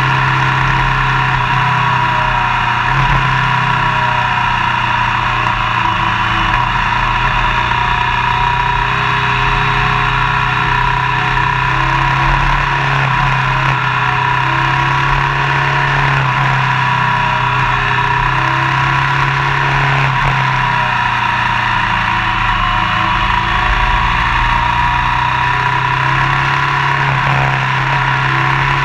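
Motorcycle cruising at a steady speed, its engine running evenly under a constant rush of wind and road noise, heard from a camera mounted by the front wheel.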